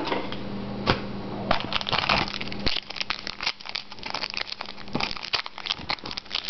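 Plastic wrapper of a trading card pack being torn open and crinkled as the cards are pulled out and handled, a dense run of irregular crackles.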